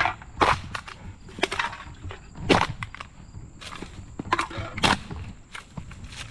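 Footsteps crunching through dry roadside grass and litter, roughly one step a second, uneven in loudness.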